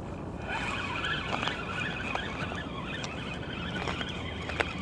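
Spinning reel on a feeder rod being wound in after a strike: a steady whirr with a few light clicks.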